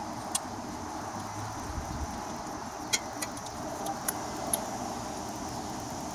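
A handful of light, sharp metallic clicks and clinks, scattered irregularly, as the carburetor's float bowl and its bolt are pulled off and handled, over steady background noise.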